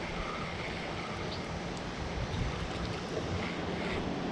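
Steady outdoor wash of wind and water noise, with wind rumbling on the microphone.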